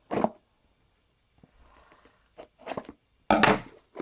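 Handling of a smartphone's retail box and packaging: a sharp knock at the start, soft rustling, then a louder clatter of knocks and scuffs about three seconds in.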